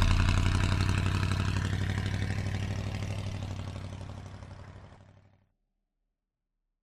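A vehicle engine running with a steady low hum and fine, even pulsing, fading away and ending in silence about five seconds in.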